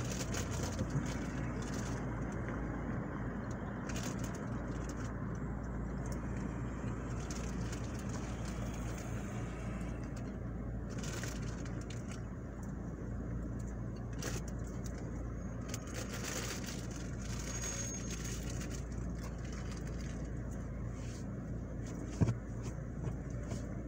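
Car engine idling, heard from inside the cabin as a steady low hum, with light traffic noise around it. A single short knock about 22 seconds in.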